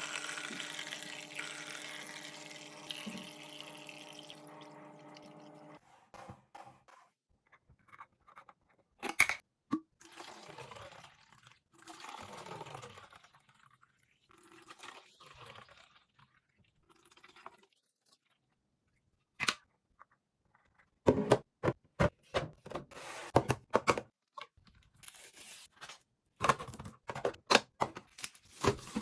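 Restocking a fridge: a steady humming hiss for the first six seconds, then scattered clicks and knocks of containers being set down and rustling of packaging, coming thick and fast near the end.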